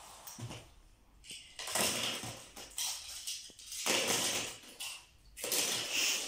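Toy cars clattering and rattling as they are tossed by hand into a plastic storage box, in about four separate bursts.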